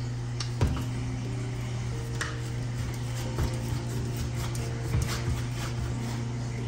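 Soft background music with a steady low hum. Over it come a few light clicks and scrapes as the screw caps of the PVC primer and cement cans are twisted open.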